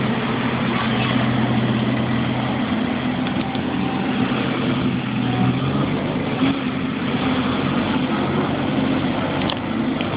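Street sweeper and dump truck engines running at a steady idle-like hum, with a low drone that weakens about two and a half seconds in while the sweeper moves past.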